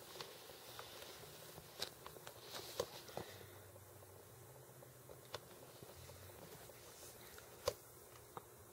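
Scattered light clicks and taps of plastic toy action figures being handled by hand, the sharpest near the end, over a faint low hum.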